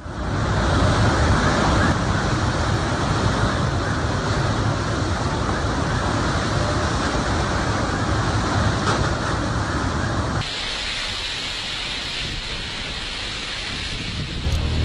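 Typhoon-force wind and driving rain: a dense, steady rush of noise. About two-thirds through it abruptly thins, losing much of its low rumble.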